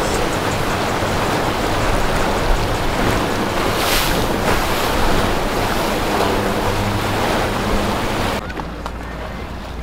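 Wind buffeting the microphone over rushing water, with the low drone of a passing motor yacht's engines underneath. The noise drops suddenly near the end.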